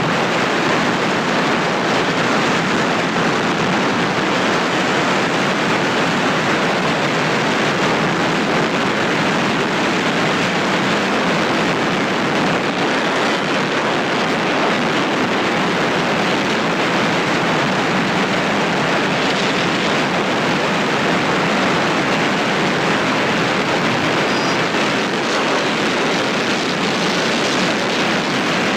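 Steady rush of wind and road noise from a Bajaj Pulsar 220 motorcycle ridden at highway speed, around 95 km/h, with no engine note standing out.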